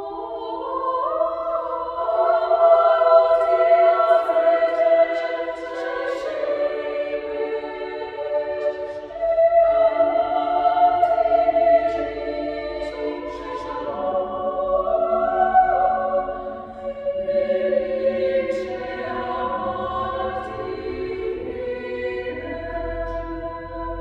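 Mixed choir of women's and men's voices singing in sustained chords, in long phrases that swell and ease off several times.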